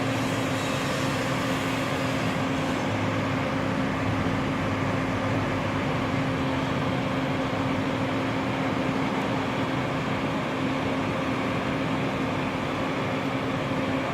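Idling vehicle engine: a steady drone with a constant hum that does not change in pitch or loudness.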